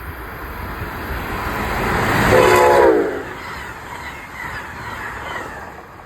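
A train passing. Its rumble builds to a peak about two and a half seconds in, where a short horn blast drops in pitch, and then the noise fades away.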